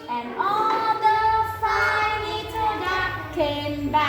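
A young girl singing a nursery-rhyme line in a high, unsteady child's voice.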